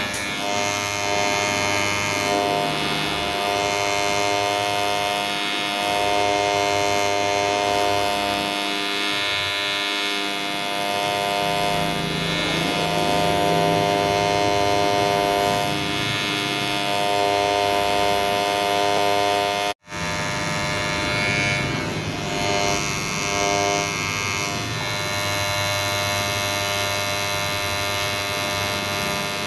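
Ubeator cordless hair clipper running continuously with a steady electric buzz. It cuts out for an instant about two-thirds of the way through.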